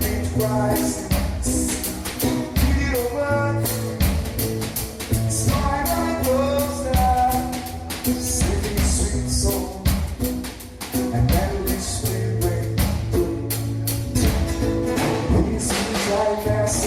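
Acoustic band: a singer over a strummed acoustic guitar and a drum kit, with sung phrases and short gaps where only the guitar and drums play.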